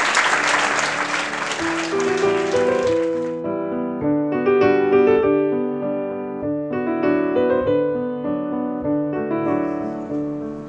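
Audience applause that dies away over the first three seconds or so, as solo piano music comes in and carries on with a slow melody over chords.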